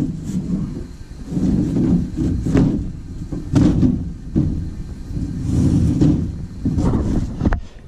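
Scraping, rubbing and a few sharp knocks as a panel is slid and shifted in a metal drop-ceiling grid, with close handling noise in uneven bursts about a second apart.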